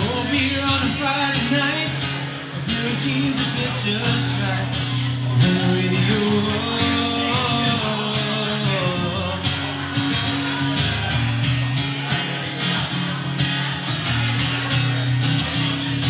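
A man singing a country song to his own strummed acoustic guitar, played live through a microphone.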